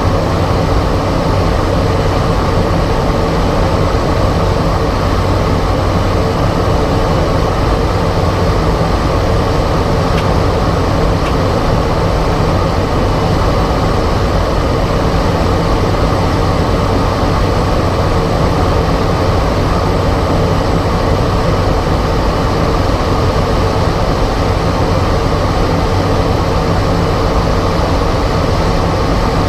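Cessna 208 Caravan's Pratt & Whitney PT6A turboprop and propeller droning steadily, heard from inside the cockpit on approach to the runway.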